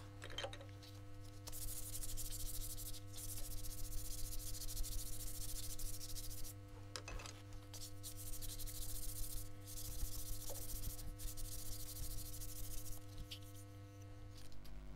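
Juniper spatula pressed against a lathe-mounted abrasive sanding disc, giving a rough sanding hiss in stretches with short breaks, over the steady hum of the lathe motor. The hiss starts a second or two in and stops near the end.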